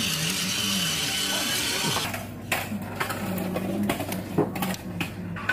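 Small geared motor of a battery-powered robotic toy spider whirring steadily as it walks. About two seconds in, the whir stops and a few scattered sharp clicks and taps follow.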